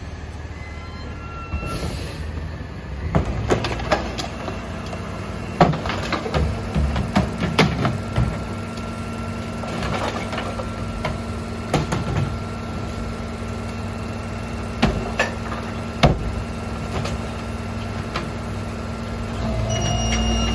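Peterbilt rear-loader garbage truck running while recycling bins are tipped by hand into its hopper: a low engine rumble with repeated clatters and knocks of plastic bins and recyclables falling in. A steady whine joins about five seconds in, and the engine gets louder near the end.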